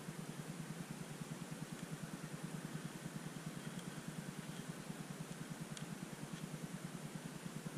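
A small engine running steadily in the background, a low pulsing hum. A few faint ticks come about four and six seconds in.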